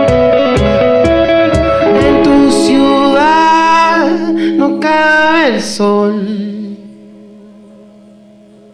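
Live band music: a drum beat and electric guitar, with a male voice singing a long held note about three seconds in and then sliding down in pitch. After about six seconds the band drops away, leaving a faint low held note.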